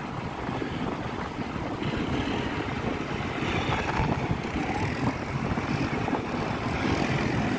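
Strong wind buffeting the microphone in a steady, gusty rumble, with a quad bike's engine running as it rides past.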